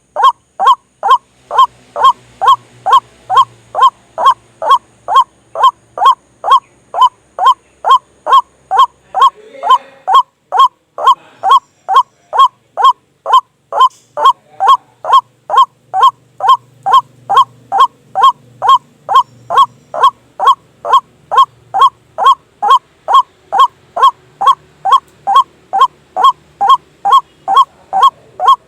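White-breasted waterhen (ruak-ruak) calling a loud, monotonous series of short honking notes, about two a second without a break: a lure-call recording used to draw waterhens to a snare.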